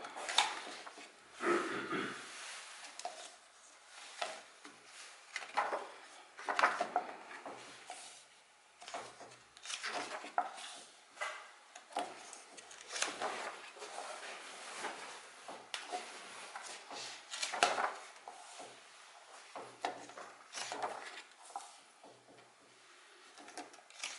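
Pages of a paperback book being turned and smoothed flat by hand: a string of paper rustles and swishes every second or two, a few of them sharper.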